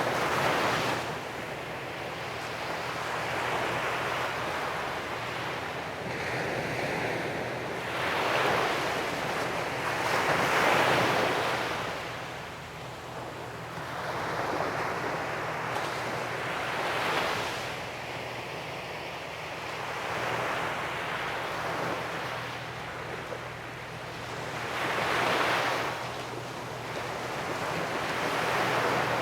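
Sea waves breaking and washing up the beach, the rush swelling and fading every several seconds, with the loudest surge about ten seconds in.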